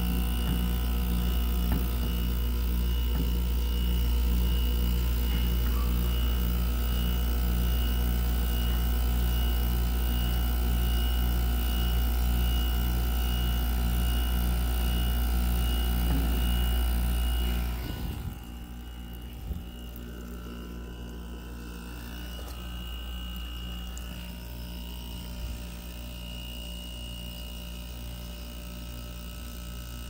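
Frigidaire window heat pump running through a defrost cycle: a steady low hum with a faint high whine, heard close up, dropping to a quieter hum about 18 seconds in, with a single click soon after.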